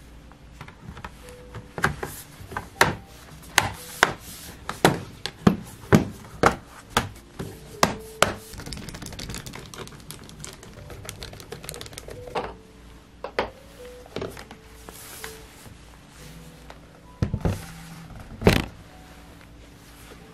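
Sharp clicks and knocks from a laptop being reassembled by hand, about one or two a second for several seconds, then a few scattered knocks with a louder pair near the end.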